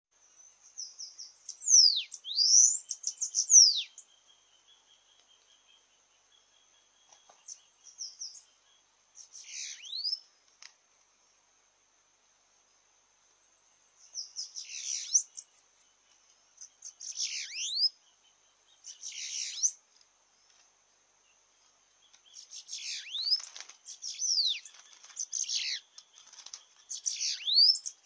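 Bananaquits singing: bouts of high, fast, thin notes with quick downward sweeps, coming in several spells with short silences between. A faint steady high tone runs underneath.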